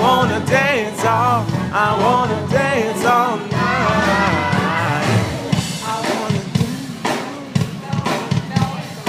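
Live soul/R&B band with backing singers in full voice, ending their phrase with a long rising run about four seconds in; then the voices drop back and the drums and bass carry on.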